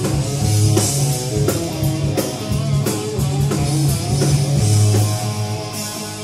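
Heavy metal band playing live: distorted electric guitars and bass over a drum kit with regular drum and cymbal hits.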